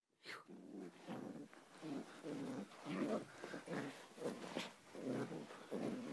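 Corgi puppy making short, repeated vocal noises at play, about two a second.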